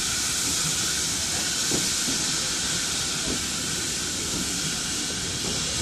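Steam locomotive blowing off a steady hiss of escaping steam, over the low rumble of its coaches rolling slowly past.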